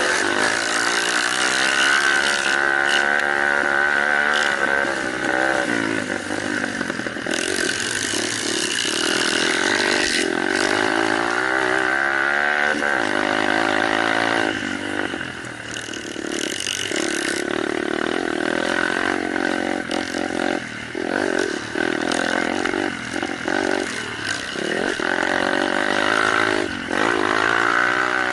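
Small off-road motorcycle engines of a kids' and mini-moto class running and revving, their pitch rising and falling again and again.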